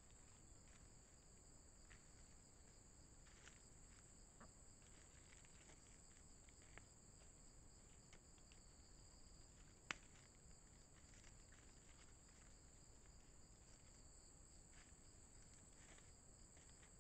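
Faint, steady insect chorus, with two high-pitched bands of buzzing, over low background hiss. Scattered faint ticks and rustles, and one sharp click about ten seconds in.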